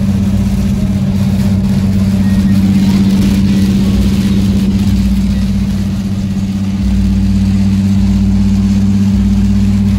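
A car driving at a steady cruising speed. Its engine and tyres make an even, low drone, which eases briefly about six seconds in.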